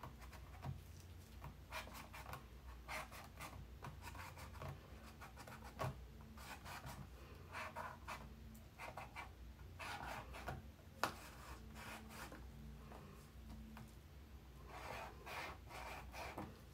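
Acrylic paint marker tip scratching short strokes on a canvas through the slots of a plastic stencil, faint and in irregular bursts, with a couple of sharper clicks.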